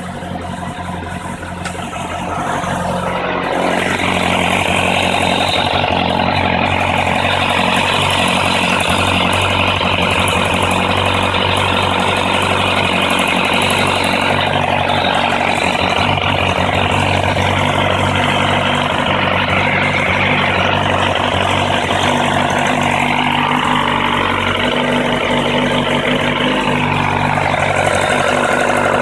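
Kawasaki ZRX1100 motorcycle's inline-four engine idling just after starting, getting louder over the first few seconds and then running steadily. It carries a strange sound that the owner cannot place.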